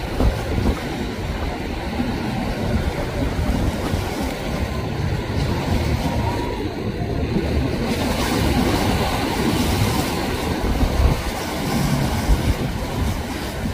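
A large flybridge motor yacht pushing through breaking inlet waves: a steady low rumble of its engines mixed with churning surf and spray crashing against the hull.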